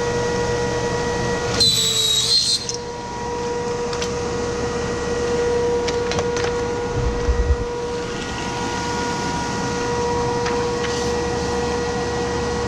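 Rosback 880F single-clamp perfect binder running through a binding cycle: a steady machine hum, a brief shrill high-pitched screech about two seconds in, a few sharp clicks and a low thump midway.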